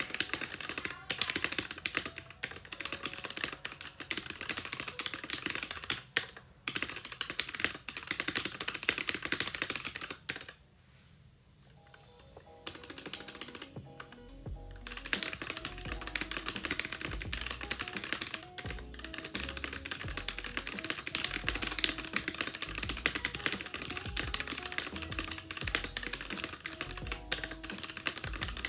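Fast typing on a Keychron K6 65% mechanical keyboard with Gateron Red linear switches, a steady clatter of keystrokes. The typing stops briefly about a third of the way in. When it resumes, background music with a steady beat comes in underneath.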